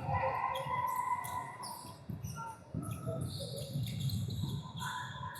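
Basketball game noise in a gym: background voices with scattered court sounds, and no single loud bounce standing out.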